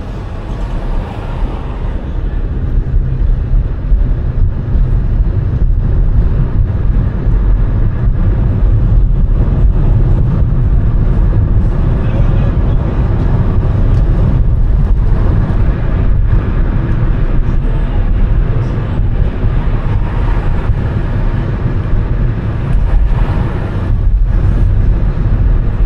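Steady low rumble of a car driving, with road and engine noise throughout.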